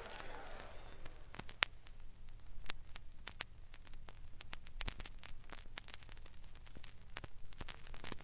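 Vinyl record surface noise in a quiet stretch of the LP: scattered clicks and pops of crackle over a faint steady low hum.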